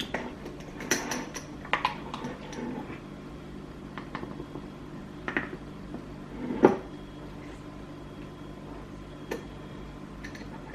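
Kitchen utensils knocking and clinking as cocoa powder is measured out with a measuring cup and tipped into a mixing bowl: a few scattered knocks, the loudest about two-thirds of the way through, over a steady low hum.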